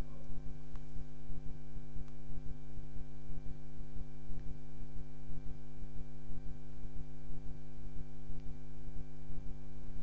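Steady electrical hum with a stack of evenly spaced overtones.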